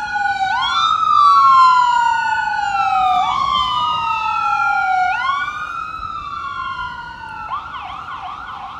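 Ambulance siren on an emergency run, going in long wail sweeps that each rise quickly and fall slowly. It is loudest a second or two in, then fades as it drives off, and about seven and a half seconds in it switches to a fast yelp.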